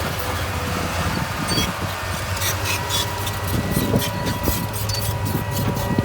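Diesel engine of a heavy earthmoving machine running steadily, with frequent metallic clicks and rattles, and a steady whine that comes in about halfway through.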